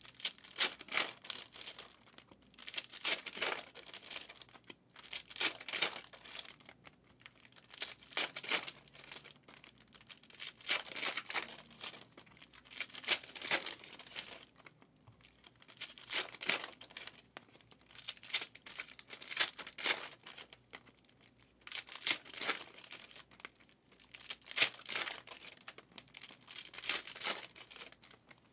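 Trading-card pack wrappers being torn open and crinkled, in irregular bursts with short pauses between them.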